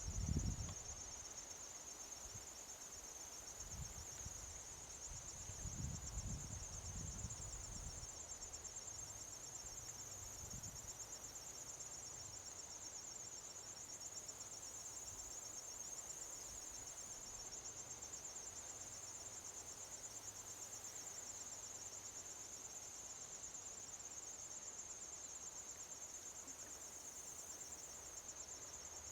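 Insects trilling steadily in a high, rapid pulsing chorus that does not let up. A few low rumbles come in the first ten seconds, the loudest right at the start.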